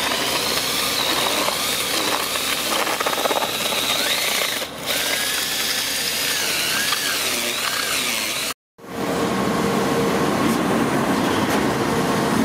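Electric drill with a paddle mixer churning epoxy resin mortar in a plastic bucket, its motor whine wavering in pitch as the load changes. About two-thirds through the sound cuts off abruptly and is replaced by a steadier hum with a low tone.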